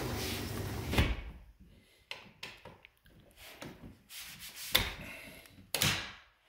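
Handling noise from a hand-held phone: a rubbing scrape for about the first second, ending in a sharp knock, then scattered light taps and clicks, with two louder knocks near the end.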